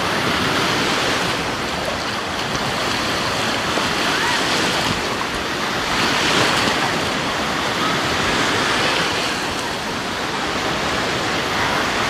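Sea surf: waves breaking and washing in over the shallows in a steady rushing noise that never pauses, from a rough sea.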